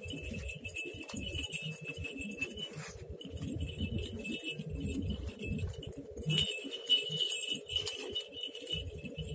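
Small bells jingling on and off over a low rumble, the ringing briefly louder a little past the middle.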